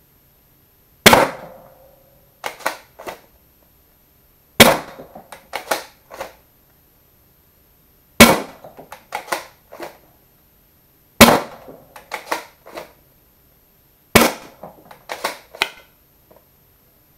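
Modified Worker Prophecy Type R spring-powered Nerf blaster with a brass breech insert firing foam darts, five sharp shots about three seconds apart, each followed by a few lighter clacks.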